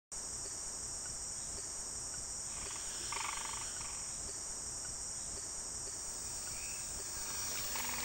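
Steady, high-pitched chorus of insects, with a short pulsed call from another animal about three seconds in.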